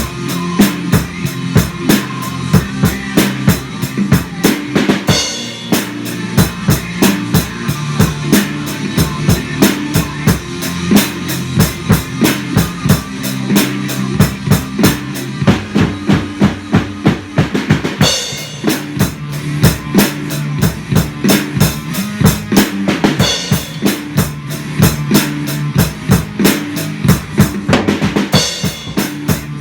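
Drum kit playing a fast, steady rock beat, bass drum and snare driving on, with cymbal crashes at about 5, 18, 23 and 28 seconds, over a rock track with sustained low pitched notes.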